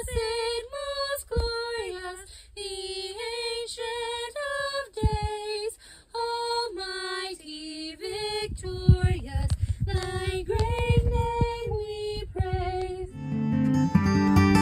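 A woman's voice singing a slow melody alone, holding each note briefly. Acoustic guitar strumming comes back in near the end.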